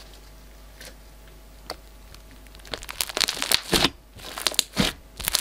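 Glossy glitter slime pressed and poked by fingers right by a microphone, giving a dense run of crackling pops that starts about halfway through. Before that, only a few faint isolated pops while the stretched slime sags and settles.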